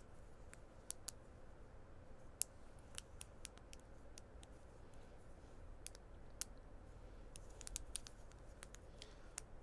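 Plastic link-chain twist toy (Clickers) clicking at its joints as the segments are bent and twisted by hand: irregular sharp clicks, bunched into a quick run near the end.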